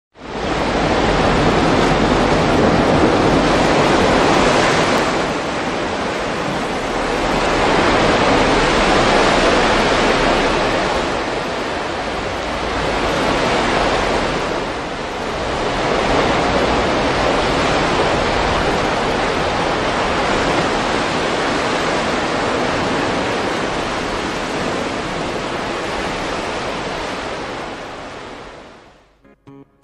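A loud rushing noise like surf, swelling and easing every few seconds; it fades in at the start and dies away near the end.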